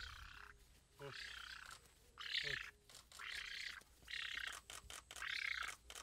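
Young black-faced spoonbill begging for food: a string of hoarse, breathy calls, about one a second, while it flaps its wings.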